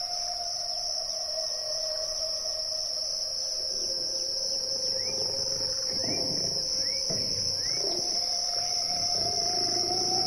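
A steady, high-pitched insect chorus, with a wavering lower tone under it and a few short rising chirps in the middle.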